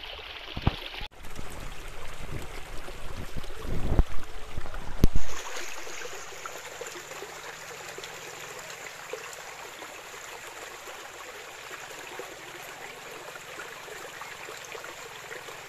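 Forest stream running over rocks, a steady rush of water, with a few low thumps about four and five seconds in.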